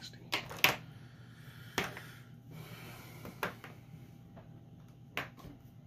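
Copic markers being handled: about five short sharp plastic clicks and knocks, the loudest within the first second, as markers are picked up and set down on the table, over a faint steady low hum.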